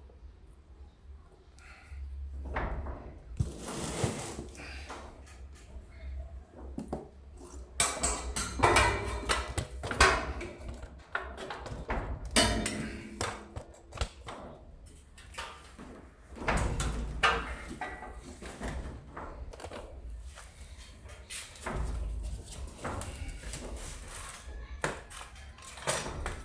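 Intermittent clatter, knocks and scraping of tools and sign boards being handled and cut on a workbench.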